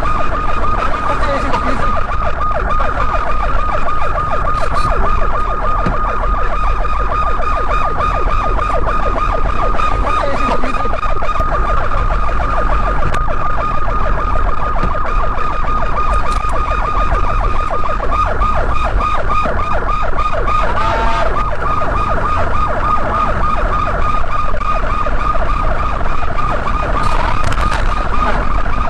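Police car sirens sounding a fast, unbroken warble, over a low engine and road rumble.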